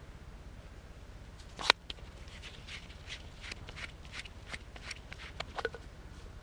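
Handling of a Barbieri Visionair bicycle mini pump with CO2 inflator: one sharp click a little under two seconds in, then a run of lighter clicks, about three a second, as the pump head is turned and opened.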